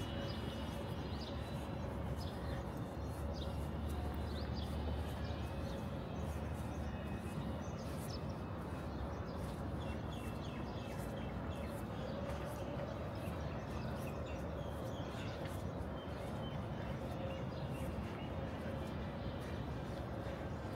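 Outdoor background noise: a steady low rumble and a faint steady hum, with small birds chirping on and off throughout.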